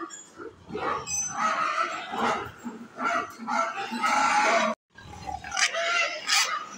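Pigs grunting and calling in a pig house, a dense run of irregular vocalisations, broken by a brief silence about three-quarters of the way through.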